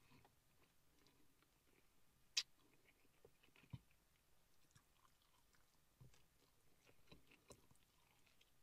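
Faint chewing and biting of crispy fried chicken, with a few scattered clicks, the sharpest about two and a half seconds in.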